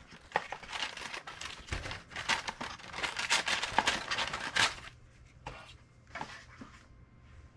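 Paper rustling and crinkling with light taps of cardboard as a printed paper slip and a cardboard box lid are handled. The handling is busy at first and turns quieter, with a few light rustles, after about five seconds.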